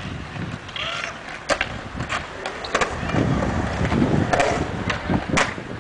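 Skateboard riding on concrete: the wheels make a low rumble that grows louder in the second half, broken by several sharp clacks of the board.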